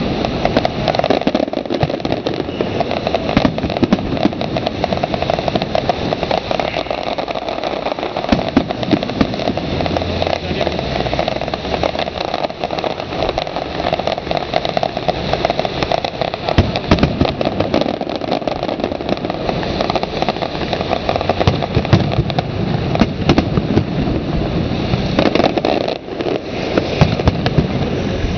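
Fireworks display: a continuous, dense barrage of sharp bursts and pops over a steady rumble.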